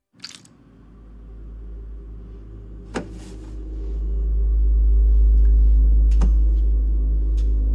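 Deep low rumble that swells up over several seconds, with faint steady low tones above it and a few sharp clicks scattered through it: a film soundtrack's ominous drone.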